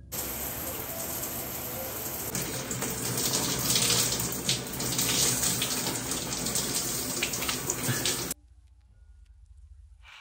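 Shower spray running and splashing onto a person's head and body, with irregular splashes. It cuts off abruptly about eight seconds in, leaving a much quieter background.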